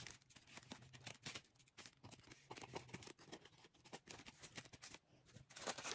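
Near silence with faint, irregular rustles and ticks of paper strips being handled.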